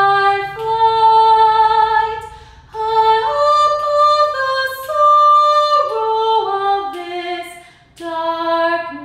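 A woman singing unaccompanied, holding long notes that step up and down in pitch, in phrases broken by short breaths about two and a half seconds in and again near the end.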